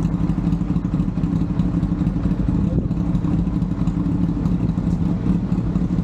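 Motorcycle engine running at a steady, unchanging speed, a constant drone with no revving.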